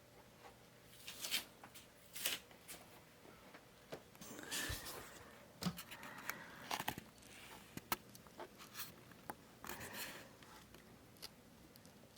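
Irregular scratching and rustling, with a few light taps, from a kitten at play.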